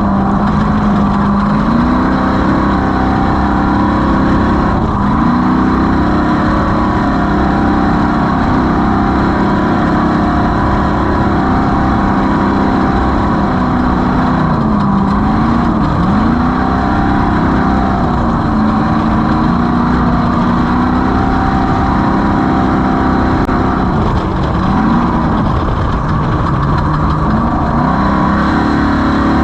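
Off-road race vehicle's engine running hard under steady load. Its pitch dips and climbs back several times as the throttle is lifted and reapplied: about a second in, around five seconds, midway, and near the end.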